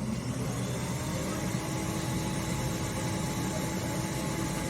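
Steady, even whir of a motor-driven machine with a faint hum running through it, vacuum-cleaner-like.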